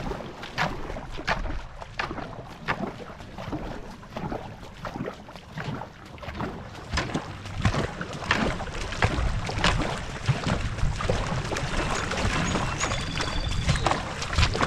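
Paddles of a two-person marathon racing canoe stroking the water in a steady rhythm, about three splashing strokes every two seconds, with a low wind rumble on the microphone.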